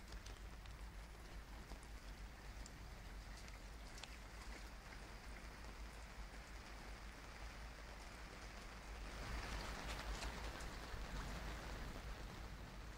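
Steady hiss and patter of rain, with a few faint drips, over a low steady rumble; the rain grows louder about nine seconds in.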